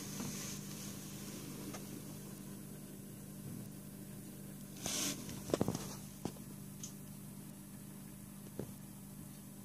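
Faint fizzing of a bath bomb dissolving in bathwater over a steady low hum. A short hiss comes about five seconds in, followed by a few small clicks and one more click near the end.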